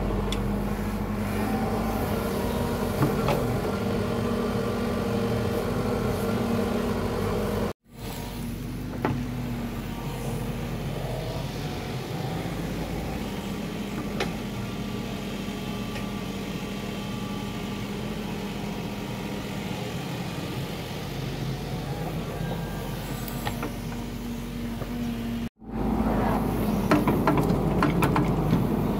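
Hitachi mini excavator's diesel engine running steadily as it digs. Near the end, many knocks and scrapes of the steel bucket working the soil ride over the engine.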